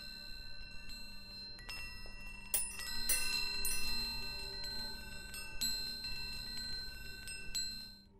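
Metal chimes ringing: many bell-like tones struck irregularly at a handful of fixed pitches, ringing over one another. They cut off suddenly near the end.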